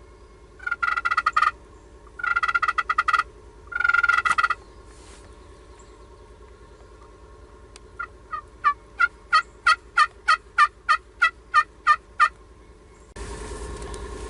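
Wild turkey gobbler gobbling three times in quick succession, each a loud, rapid rattling call lasting under a second. Later comes a series of about fourteen short turkey yelps, about three a second.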